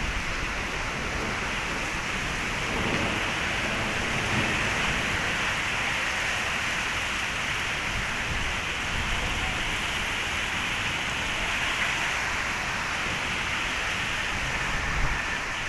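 Heavy rain pouring down steadily in a storm, a dense, even hiss of rain.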